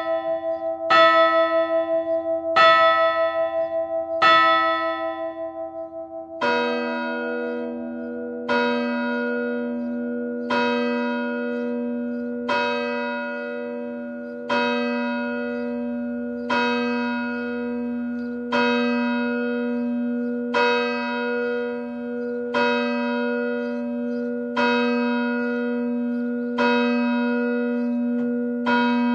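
Church bells tolling. A higher bell is struck three times, about every second and a half, its ring pulsing as it fades. From about six seconds in, a deeper bell tolls steadily about every two seconds, each stroke ringing on into the next.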